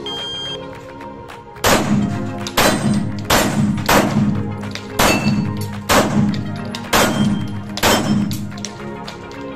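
A string of eight pistol shots from a CZ P-10 SC, starting about two seconds in and fired roughly one a second at steel plates, which clang when hit. Background music runs underneath.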